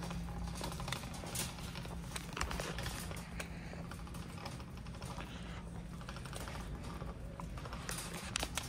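Wire shopping cart rolling over a store's concrete floor, its basket rattling and wheels clicking irregularly, over a steady low hum.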